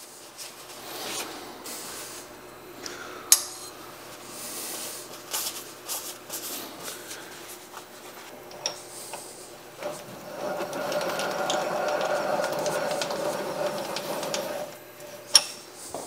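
Scattered light metal clicks and knocks as steel parallels are handled and lifted out of a milling-machine vise, with a few seconds of steady rubbing from about ten seconds in, as a shop towel wipes the steel vise.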